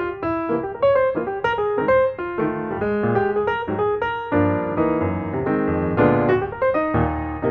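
Background piano music playing a quick, busy run of notes.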